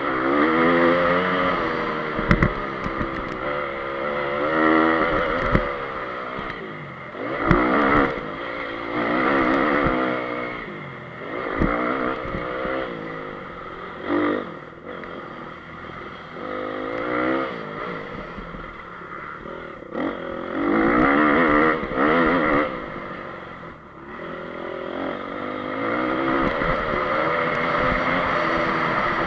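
2014 Honda CRF250's single-cylinder four-stroke engine, heard from on board, revving up and dropping back over and over as the rider accelerates, shifts and rolls off. A few sharp knocks come from the bike over the rough dirt track.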